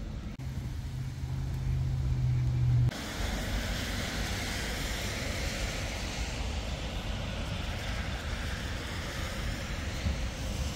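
Tram running: a steady low hum for about two and a half seconds. It breaks off abruptly into a steady rushing noise.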